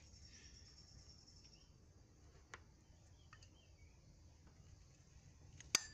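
Quiet room tone with a faint high whine that fades out within the first two seconds, a light tick about two and a half seconds in, and one sharp click near the end.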